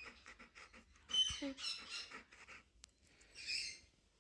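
Pet birds calling in short, shrill, rapid chirps, in a long run starting about a second in and a shorter burst near the end.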